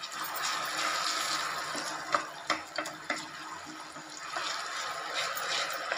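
Soaked garden cress seeds sizzling and bubbling in hot ghee in a nonstick pan, a steady hiss, with a wooden spatula scraping and knocking against the pan a few times as they are stirred.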